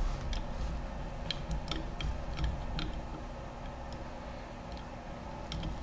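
Light, sharp clicks and taps from a metal BGA reball fixture being handled and adjusted by hand, with a dozen or so scattered over the first three seconds and a couple more near the end, over a faint steady hum.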